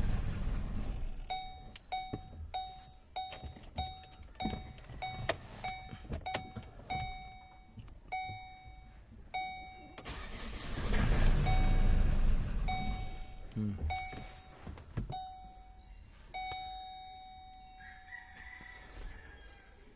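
Chevrolet Colorado 2.8 turbo-diesel being cranked twice on the starter, a couple of seconds each time, without catching, so the engine fails to start. Between the attempts the dashboard warning chime beeps steadily, about one beep every half second.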